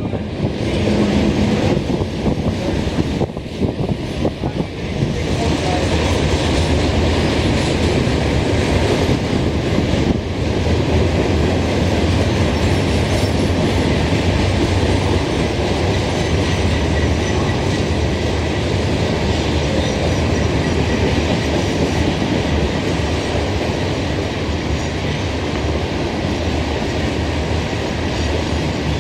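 A Norfolk Southern train rolling past close by. Its rumble builds over the first few seconds, then holds steady and loud.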